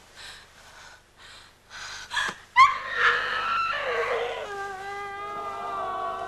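Faint ragged gasping breaths. About two and a half seconds in, a sudden loud anguished cry breaks out and runs on as a long held wail.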